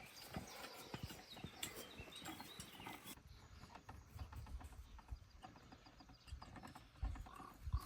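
A working horse walking, its hooves clopping irregularly, with a low rumble in the second half.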